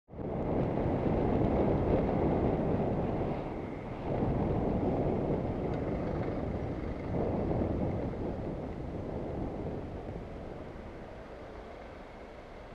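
Wind buffeting a moving action camera's microphone, mixed with traffic and road noise, dying down over the last few seconds as the rider slows.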